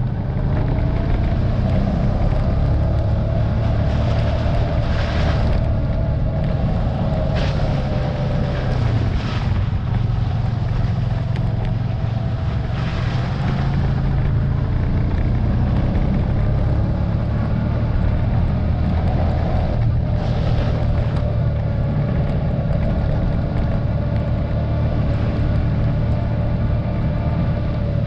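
Vehicle engine running steadily at a fairly constant speed, its pitch drifting a little, with a few brief rattles or knocks over the top.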